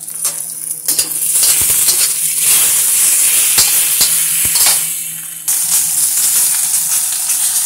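Sliced potatoes sizzling in hot olive oil in a wok, with sharp clicks and scrapes as they are stirred, over a steady low hum. About five and a half seconds in, the sizzle fades and then jumps back louder, with chunks of sausage now frying in the pan too.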